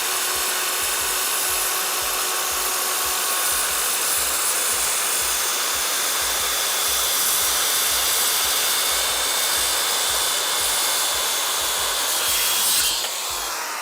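Drill Master 7-1/4-inch circular saw cutting through a 2x8 wooden board: a loud, steady whining saw noise. Near the end the cut finishes and the motor begins to wind down, its pitch and loudness falling.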